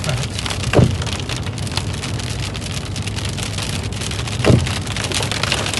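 Rain falling hard and steadily, a dense patter of drops hitting a surface. Two short swoops falling in pitch cut through it, about a second in and again near the end.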